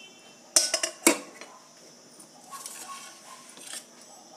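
A stainless steel plate holding small steel spice bowls being moved on a stone counter: two sharp metal clinks about half a second apart near the start, then softer rattling of the bowls.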